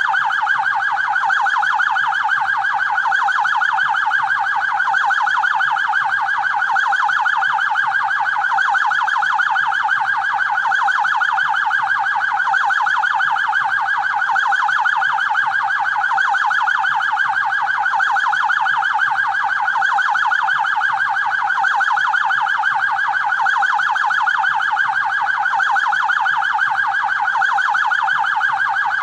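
Police siren in a fast yelp, sweeping up and down in pitch several times a second without a break.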